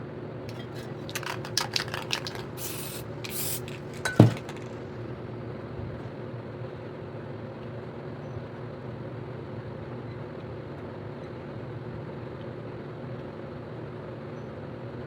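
Aerosol spray-paint can: a few clicks, two short sprays about two and a half and three and a half seconds in, then a sharp knock about four seconds in, the loudest sound. A steady machine hum runs underneath throughout.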